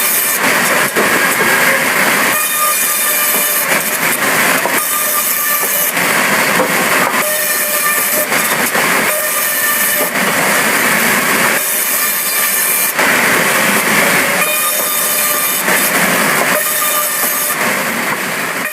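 A sawmill saw cutting wood with a loud, continuous high-pitched screeching whine and hiss. The sound shifts every second or two as the cut goes on.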